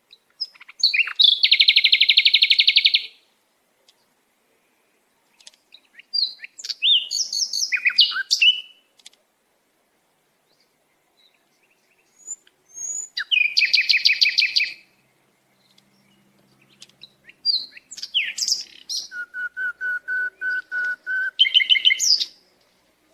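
Songbird singing in four bursts of rapid trilled notes, a few seconds apart, with a held whistled note in the last burst.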